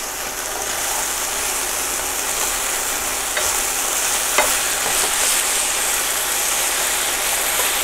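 Chicken pieces frying in olive oil in a frying pan, a steady sizzle, as they are stirred and turned with tongs that click lightly against the pan a couple of times.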